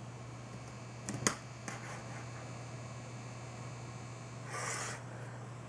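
Fractal Design Kelvin S24 liquid-cooler pump running, a faint steady low hum; it is very quiet. A sharp click sounds a little over a second in, and a brief rustle near the end.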